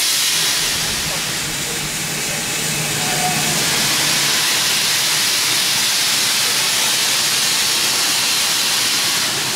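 Steam hissing steadily and loudly from a GWR Hall-class 4-6-0 steam locomotive.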